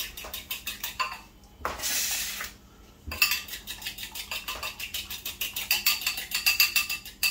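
A fork beating a raw egg in a small bowl: rapid, even clicking of the fork against the bowl, with a short rushing noise about two seconds in and a brief pause before the clicking resumes.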